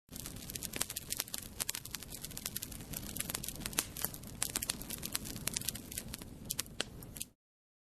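Fire crackling: a dense, irregular run of sharp pops and snaps over a low, steady rumble. It starts abruptly and cuts off suddenly a little after seven seconds.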